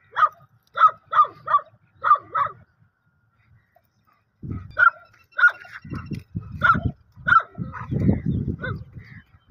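Hunting dog barking up into a tree in short sharp barks: a quick run of about six, a pause of nearly two seconds, then more barks over a low rumbling noise.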